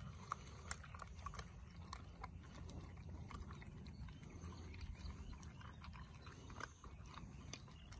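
Puppies crunching dry kibble from a metal bowl, with many small irregular crunches and clicks, over a steady low rumble.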